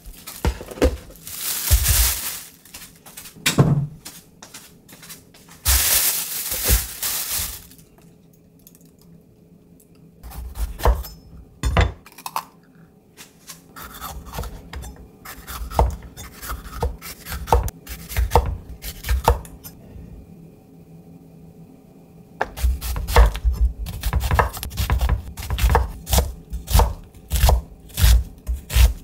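A chef's knife cutting on a wooden cutting board: scattered knocks as a bell pepper is sliced, then a fast run of chopping, several strokes a second, as an onion is diced near the end. Two stretches of hissing noise come first.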